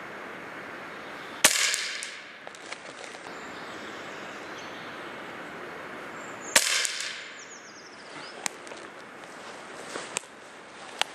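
Hatsan AT44-10 .22 PCP air rifle fired twice, about five seconds apart, each shot a sharp crack with a short fading tail. A few fainter clicks follow later on.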